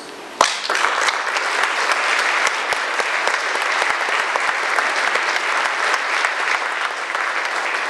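Audience and panelists applauding, beginning with one sharp clap about half a second in, then steady dense clapping.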